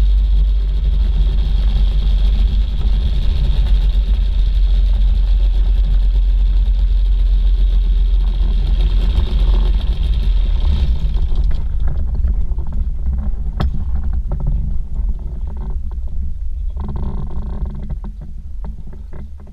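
Microlight trike's rear-mounted pusher engine and propeller running as it taxis. About eleven seconds in the higher hiss drops away and the engine settles to a lower idle with a regular ticking firing rhythm.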